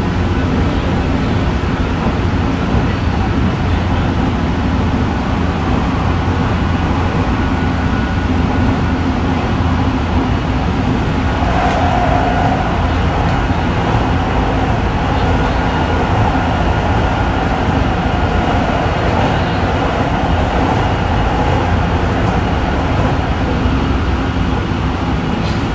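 Tsukuba Express electric train running at speed, heard on board: a steady rumble of wheels on rail with a low hum. A faint whine comes in about halfway through.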